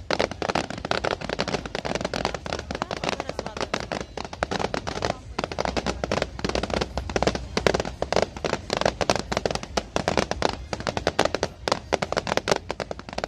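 Fireworks display going off: a dense, rapid run of bangs and crackles that keeps up without a break.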